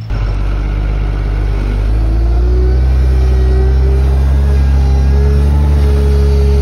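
Hyundai wheel loader's diesel engine running under load as its bag-filling attachment is pushed into a sand pile. The engine note rises in pitch and loudness about two seconds in, then holds steady.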